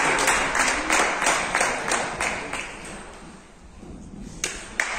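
Rhythmic clapping, about three claps a second, echoing in a large hall and dying away after about three seconds. A few sharp taps follow near the end.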